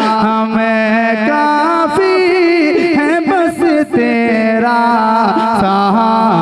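Male voice singing a naat in a classical style, holding long notes with fast, wavering ornamented runs between about two and four seconds in, over a steady low held note underneath.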